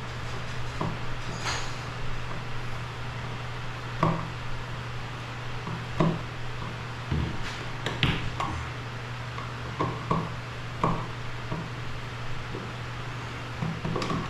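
Scattered, irregular clicks and knocks of hand tools and wiring being worked at an electrical box, over a steady low hum.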